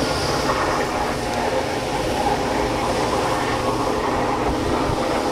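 Pickup truck driving through a deeply flooded street, its engine running under a steady rush of water spray.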